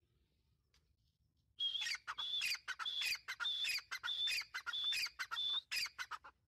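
Grey francolin calling its loud, repeated 'tee-tar' phrase about seven times in quick succession, starting about a second and a half in; each phrase is a held high note followed by a falling note.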